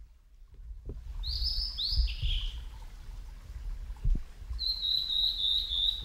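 Male blue-and-white flycatcher singing: a quick run of down-slurred notes about a second in, then a long, slightly wavering whistle near the end that steps up to a higher note. A low rumble runs underneath, with a soft thump about four seconds in.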